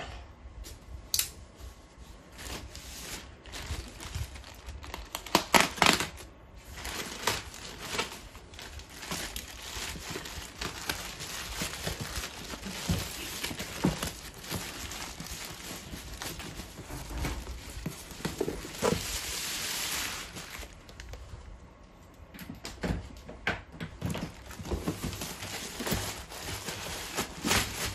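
Grey plastic courier mailer bag being slit and torn open by hand, crinkling and rustling in irregular bursts as a cardboard box is worked out of it.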